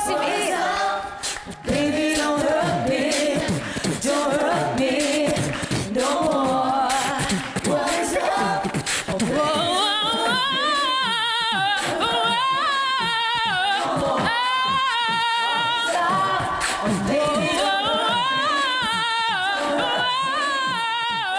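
Two women singing together a cappella into handheld microphones; from about halfway in, their long held notes waver with a clear vibrato.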